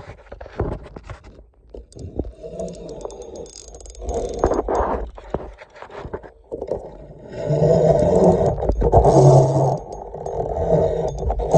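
Fishing reel being cranked while a hooked fish is played on a taut line, a mechanical whirring with handling knocks. It starts as irregular knocks, then turns louder and steadier about two-thirds of the way in.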